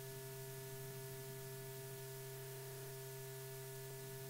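Steady electrical hum with hiss from an old film soundtrack; no other sound.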